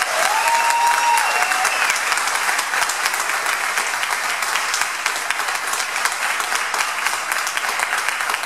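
Audience applauding, with a brief cheer in the first two seconds.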